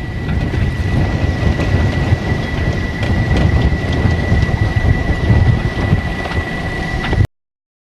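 Strong wind buffeting the microphone: a loud low rumble with crackles, and a faint steady high whine underneath. It cuts off abruptly a little over seven seconds in.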